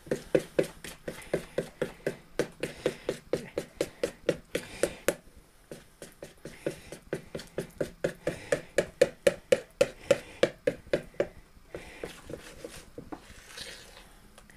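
A metal spoon stirring a sticky ginger-nut crumb and melted-butter mixture in a plastic bowl, knocking against the bowl about three to four times a second. The knocking pauses briefly about five seconds in, starts again, and turns to softer scraping near the end.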